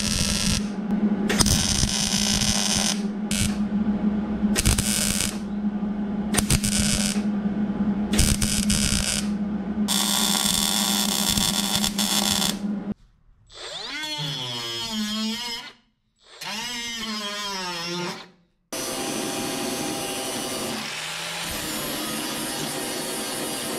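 MIG welder crackling in a run of stop-start bursts as the sheet-metal firewall box is tack-welded and welded in. About thirteen seconds in it stops, and an angle grinder whirs with a wavering pitch, then grinds steadily, cutting off the excess metal.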